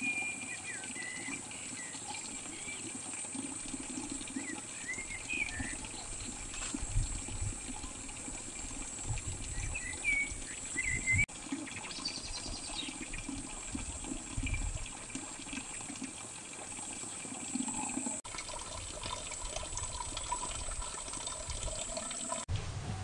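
Water running steadily, with a few short high chirps now and then and a steady high-pitched hum.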